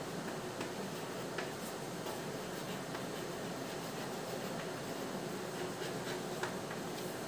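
Writing by hand: faint scratches and a few light taps of the writing tool, over a steady background hiss.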